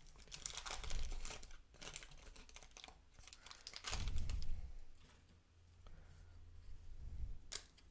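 Wax paper wrapper of a 1987 Topps baseball card pack being torn open and crinkled, with the cards handled, in irregular crackly bursts and a couple of dull bumps.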